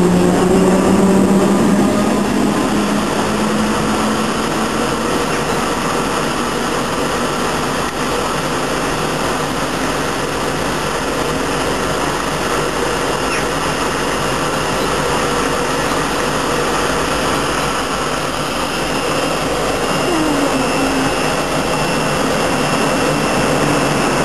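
British Rail Class 314 electric multiple unit pulling away, its traction motors giving a rising whine for about the first two seconds, followed by a steady rushing noise.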